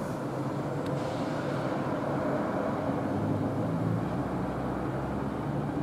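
Steady low outdoor rumble, with a faint click about a second in.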